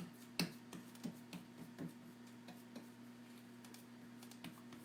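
A run of light, sharp taps or clicks, about two or three a second, the loudest about half a second in and growing fainter after, over a steady low electrical hum.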